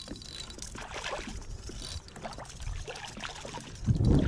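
Water splashing and trickling as a landing net is worked through the water beside a kayak to scoop up a small redfish, with scattered light ticks and splashes. A louder low rush comes near the end.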